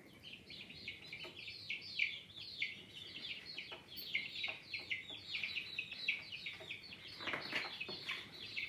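A flock of baby chicks cheeping: a steady stream of short, high, falling peeps, several a second.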